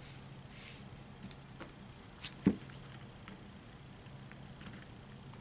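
Small metal parts and tools being handled while taking apart a model locomotive: scattered light clicks, with two sharp clicks close together a little over two seconds in, over a faint steady hum.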